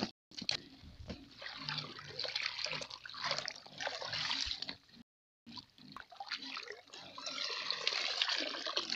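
Pond water sloshing, splashing and trickling as floating azolla is scooped out with a basket. The sound cuts out completely twice for a moment, just after the start and about five seconds in.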